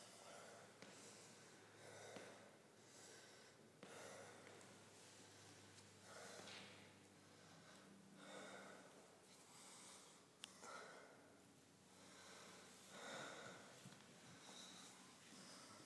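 Faint, slow breathing: noisy breaths drawn and let out about every two seconds, over a low steady hum, with a single short click about ten seconds in.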